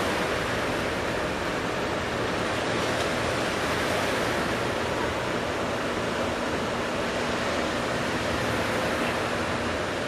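Ocean surf: waves breaking and washing in a steady rushing roar, with a faint steady hum coming in about halfway.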